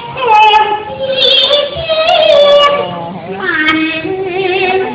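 Cantonese opera singing: a high female voice sings long, drawn-out notes that slide between pitches and waver with vibrato.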